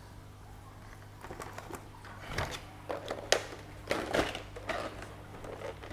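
Black plastic plant trays and clear plastic blister packaging handled on a wooden table: a run of irregular clicks, knocks and crinkles of plastic, beginning about a second and a half in, the sharpest about three seconds in.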